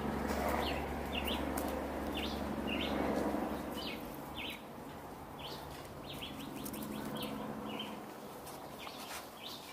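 Birds chirping in the trees, short high chirps about two a second, with a low rumble during the first few seconds that fades out.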